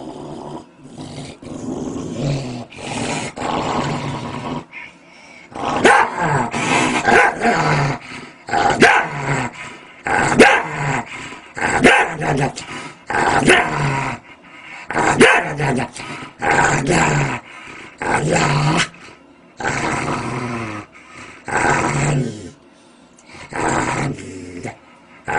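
A dog growling and barking in repeated bouts, each about a second long with short gaps between, getting louder about six seconds in.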